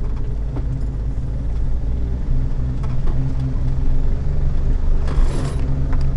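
Jeep Wrangler TJ engine running low and steady as it crawls along an off-road trail in low gear, with a few scattered knocks and a brief scraping noise about five seconds in.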